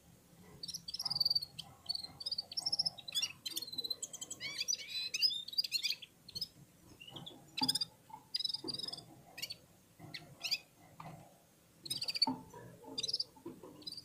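Red-fronted serin singing: quick twittering phrases of high chirps and trills, busiest in the first half, then shorter bursts with pauses between them.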